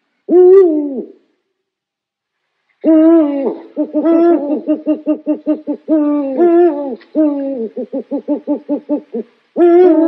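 Owl hooting: one hoot with a falling end, then from about three seconds a long run of hoots mixing longer notes with a quick series of short ones, and another hoot near the end.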